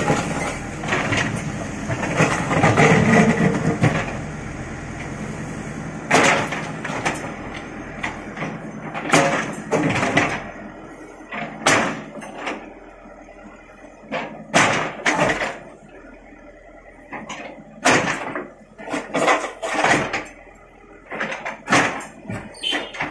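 JCB backhoe loader's excavator bucket scraping and crushing through gravel and broken concrete rubble, over the steady hum of its diesel engine. A dense grinding stretch comes in the first few seconds, then a series of sharp, irregular knocks and scrapes as the bucket strikes stones.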